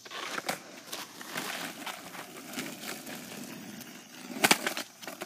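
Skateboard wheels rolling on rough asphalt, then a cluster of sharp clacks about four and a half seconds in as the board hits the wooden grind block and the pavement.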